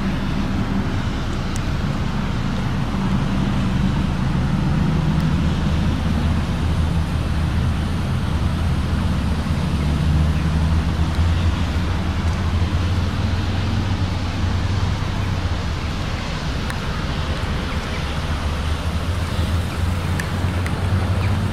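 2015 Ford Mondeo idling steadily, a constant low hum.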